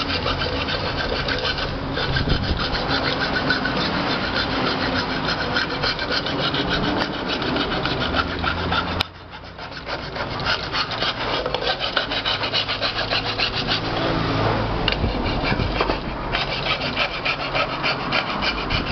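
Hand file rasping in quick back-and-forth strokes along the rim of an aluminium pressure-cooker lid, with a brief pause about halfway through. The edge is being filed down so the rubber sealing gasket won't catch on it.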